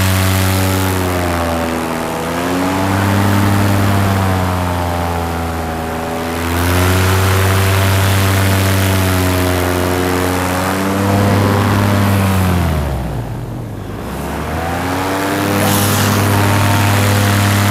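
Paramotor engine and propeller running, its pitch falling and rising as the throttle is eased off and opened again several times. About thirteen seconds in it is throttled right back, then climbs back to full power.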